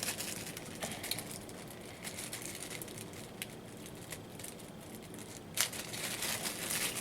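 Packaging being handled: crinkling and rustling with scattered light clicks and one sharper click about five and a half seconds in.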